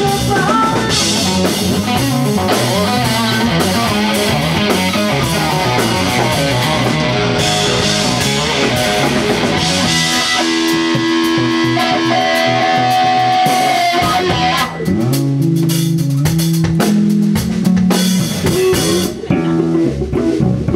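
Live rock band playing an instrumental passage: an electric guitar, Telecaster-style, over bass guitar and drum kit. About 14 seconds in, the cymbals drop back, leaving the guitar and bass on a stepping low riff.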